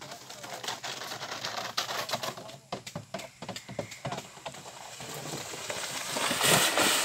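Plastic sled sliding down an artificial-turf slope: a rasping scrape with many small clicks that grows louder as the sled comes near, loudest just before the end.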